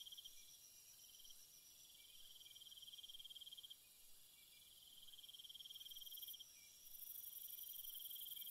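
Near silence, broken by a faint, high cricket trill that comes in stretches of a second or two with short pauses between.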